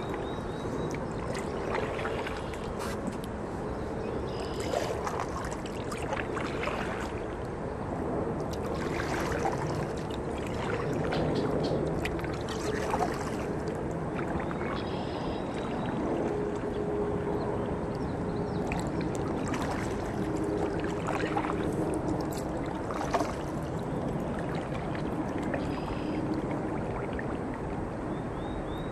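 Sea kayak being paddled: the paddle blades dip and splash in the water and drip between strokes, over a steady wash of moving water.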